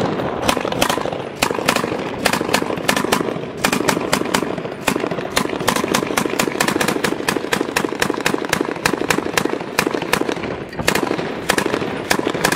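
Belt-fed machine gun firing close by in repeated bursts of rapid shots, with short pauses between bursts.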